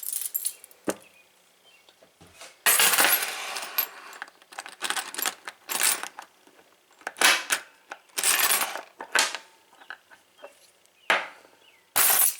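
A Master Lock padlock being unlocked with its key, keys jangling: a series of short metallic clinks and scrapes, the longest a little under three seconds in.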